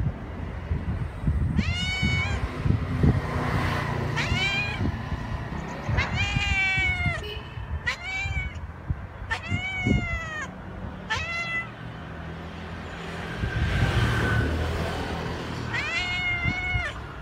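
A cat meowing repeatedly: about seven drawn-out meows, each rising then falling in pitch, a second or two apart, with a longer pause before the last one. A steady low rumble runs underneath.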